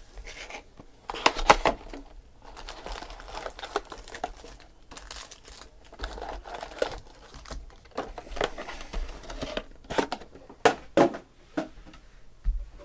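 A cardboard trading-card hobby box being torn open and its foil-wrapped card packs pulled out and set down. Crinkling foil and rustling cardboard, with sharp clicks and taps, the loudest about a second in and again near the end.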